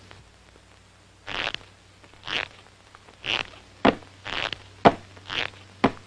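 Cartoon sound effects: short hissing puffs about once a second, with three sharp clicks in the second half.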